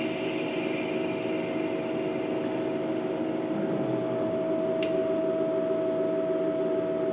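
A CNC lathe running steadily with a constant hum and a held whining tone. There is one brief click about five seconds in.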